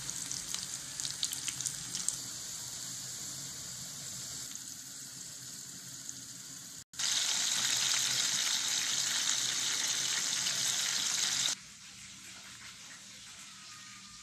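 Hot oil sizzling under potato and ripe banana pieces frying in a pan, crackling with many small pops at first and then settling to a steady hiss. About halfway, a fish steak frying gives a louder, steady sizzle that cuts off abruptly a few seconds before the end.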